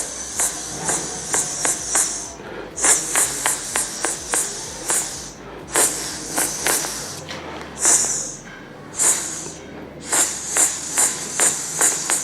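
Mouth-made imitation of ghungroo ankle bells: rhythmic hissing 'chh-chh' jingles at about three strokes a second, broken by a few short pauses.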